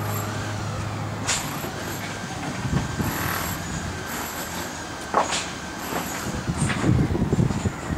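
Heavy-vehicle traffic noise: a steady low engine hum that stops after about two seconds, two short sharp hissing strokes, and wind rumbling on the microphone near the end.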